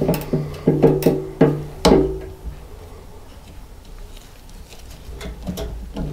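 Crimping pliers and single-use metal hose clamps clicking and tapping against the steel fuel pump plate and fuel tank. There are about seven sharp metallic knocks in the first two seconds, each ringing briefly, then quieter handling with a few faint ticks.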